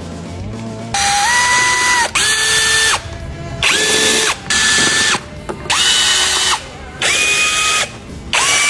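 Handheld electric power driver run in about seven short bursts, each spinning up quickly to a steady whine before stopping.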